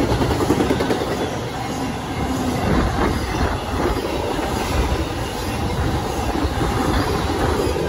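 Intermodal freight train's flatcars, loaded with highway trailers, rolling past close by: a steady rumble of steel wheels on the rails with clattering knocks from the wheels and couplers.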